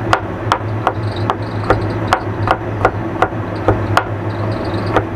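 Kitchen knife chopping garlic cloves on a cutting board: evenly spaced knocks, about two and a half a second, over a steady low hum.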